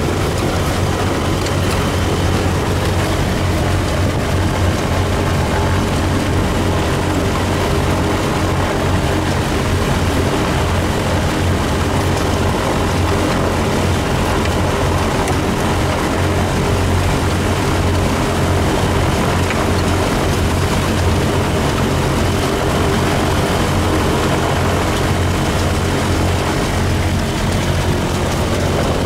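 Light aircraft's piston engine and propeller running steadily, heard from inside the cockpit.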